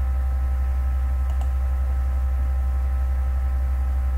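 Steady low hum with a few faint steady higher tones above it, and two faint computer-mouse clicks close together about a second and a half in.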